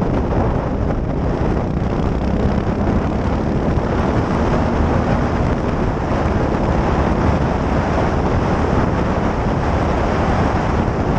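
Heavy wind buffeting on a helmet-mounted camera at riding speed, over the steady running of a Yamaha XT660X supermoto's single-cylinder four-stroke engine with a modified stock exhaust.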